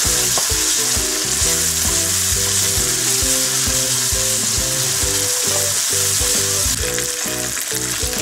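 Chopped onions and ginger-garlic paste frying in oil in a nonstick wok, a steady sizzle, as a wooden spoon stirs them round the pan.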